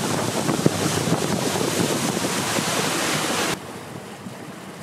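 Wind rushing over the microphone and water splashing along the aluminium hull of a shuttle boat under way. About three and a half seconds in it drops suddenly to a much quieter hush.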